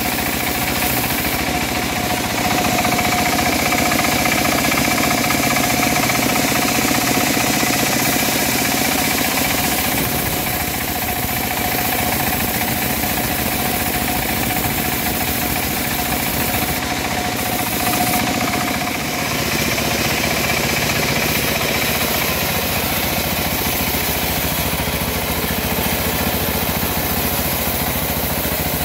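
Homemade bandsaw sawmill running steadily, its blade sawing lengthwise through a teak log: a loud, even machine drone with a faint thin whine over it.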